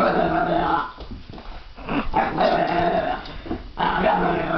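Boxer puppy giving three drawn-out barks of about a second each, with short pauses between them. It is a young dog's alarm at an unfamiliar metal sculpture.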